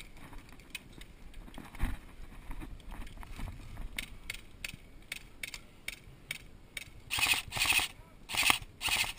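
Airsoft gunfire: a run of sharp single snaps and clicks, then three loud short bursts of rapid fire close together near the end.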